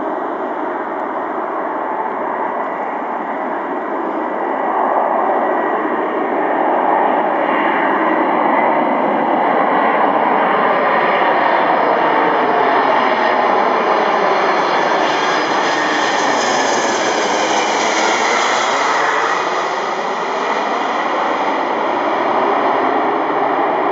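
Jet engines of a four-engined Boeing 747-200 freighter on landing approach, flying overhead. A steady jet rumble grows louder about five seconds in, with tones that swoop down and back up. A hissing whine is strongest near the middle as the aircraft passes over.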